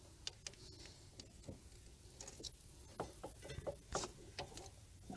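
Faint, scattered light clicks and taps of small parts being handled, the clearest about four seconds in.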